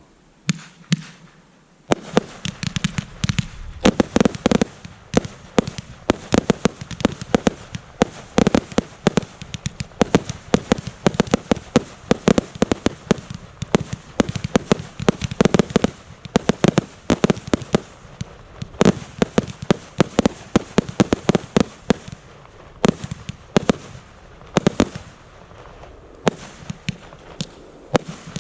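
Fireworks display going off: a rapid, near-continuous string of loud bangs and reports, a few at first and then packed tightly from about two seconds in.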